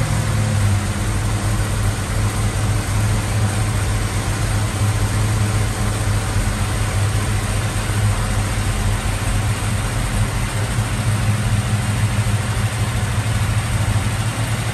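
Valiant Charger engine idling steadily, heard from inside the cabin; its note settles a little lower about half a second in and then holds.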